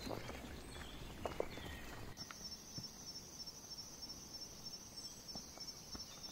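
Faint rural outdoor ambience with a few light knocks and scattered chirps, then from about two seconds in a steady, high, finely pulsing insect trill.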